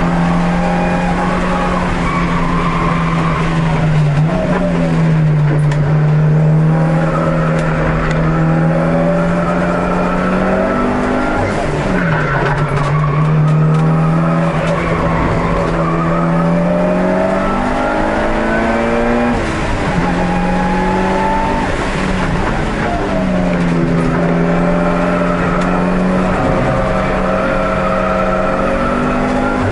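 A Mitsubishi Lancer Evolution race car's engine heard from inside the cabin while it laps a road course. The engine note climbs and falls with throttle, and its pitch breaks and recovers several times, about every seven or eight seconds, at gear changes.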